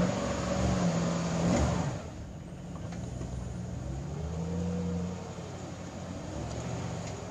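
GMC Sierra 1500 pickup engine revving under throttle while a jacked-up wheel spins in the air. It is held high for the first two seconds, then falls and rises twice more. With traction control bypassed, the computer no longer cuts the RPMs.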